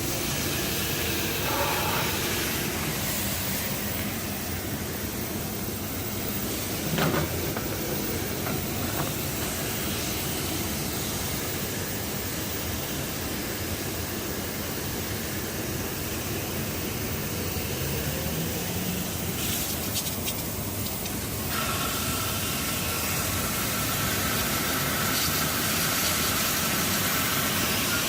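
Automatic car wash machinery hissing steadily against the car, heard from inside the cabin. There is a single knock about seven seconds in, and a steady high whine joins about two-thirds of the way through.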